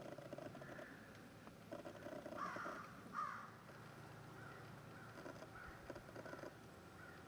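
Birds calling: two louder harsh calls close together about two and a half and three seconds in, over fainter, rapid, chattering calls.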